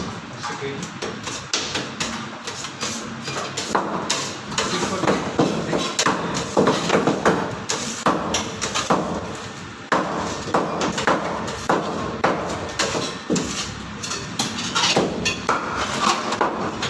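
Cleaver chopping a rohu fish into curry pieces on a wooden cutting board: repeated sharp chops at an irregular pace.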